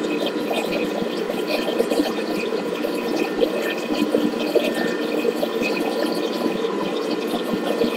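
Thermomix running a high-speed blend of liquid cheesecake batter: a steady motor whir with the batter churning in the bowl.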